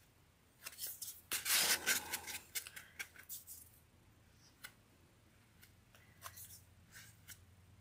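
A tool spreading and scraping spackle across the top of a foam cake round: a run of rasping scrapes in the first few seconds, then light taps and short scrapes.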